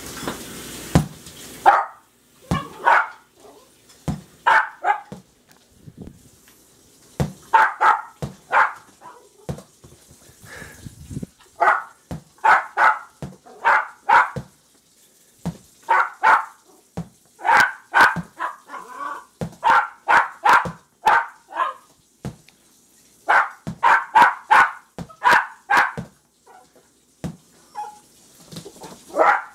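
Jack Russell Terrier puppies barking excitedly over a ball, in quick runs of short barks with brief pauses between runs. Sharp taps sound between the barks.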